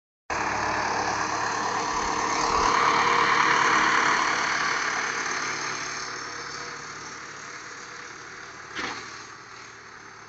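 Massey Ferguson 440 Xtra tractor's diesel engine running, loudest a few seconds in and then fading away. A single knock sounds near the end.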